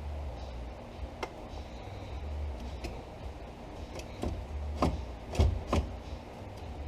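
Scattered light clicks and knocks, getting louder in the second half, from hands handling plastic trim and wiring in a car's dash, over a low steady hum.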